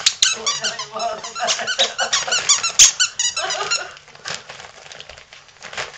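Squeaker in a plush dog toy squeaking rapidly over and over as a wolfdog chews on it. The squeaking stops about four seconds in.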